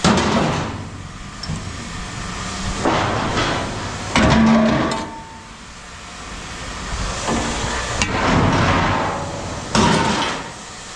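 Scrap metal being thrown down onto a pile, with a series of loud crashes and clattering, about six separate drops each trailing off in a rattle.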